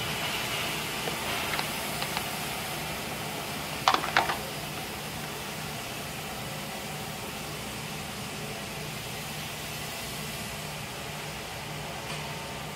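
Steady hum and hiss of factory machinery, with a low steady tone. Two sharp clacks come just before four seconds in, with a couple of lighter ticks before them, from a part being handled and set into a manual assembly fixture.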